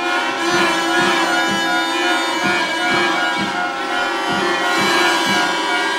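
Music with a steady beat over sustained, droning held notes.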